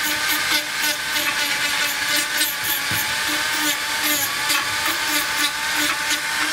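Small handheld rotary tool (Dremel-type) spinning a small disc wheel against a sculpture's surface to clean off dirt and grime: a steady high-pitched motor whine with a gritty grinding hiss.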